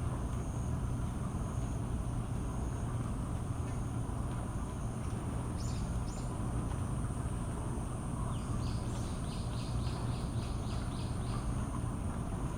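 Steady low hum and background noise with a steady high-pitched whine, over which a bird chirps twice about halfway through and then gives a quick run of about ten chirps near the end.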